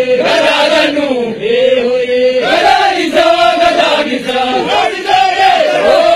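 Arsi Oromo geerarsa, a traditional chanted song, sung by male voices in long held notes that bend up and down and break off every second or so.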